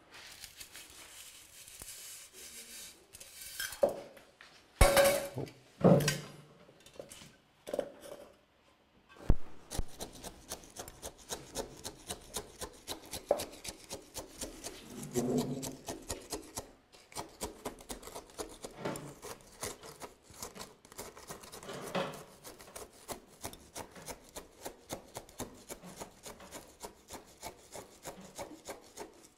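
Granular bonsai substrate being scraped and worked in around a tree's roots in its pot. A few louder knocks and scrapes come in the first several seconds, then a steady run of quick, gritty scratches, about two or three a second.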